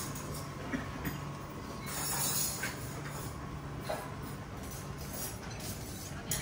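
Steady room tone of a busy indoor space: a low ventilation-like hum and background noise, with a few faint clinks and knocks scattered through.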